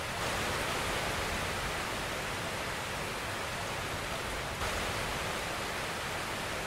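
Steady rush of water, an even unbroken hiss with no separate wave surges, stepping up slightly in level just after the start and again about four and a half seconds in.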